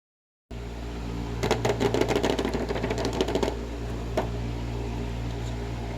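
A quick run of sharp clicks and rattles from small hard objects being handled, lasting about two seconds, with one more click a little later, over a steady low hum.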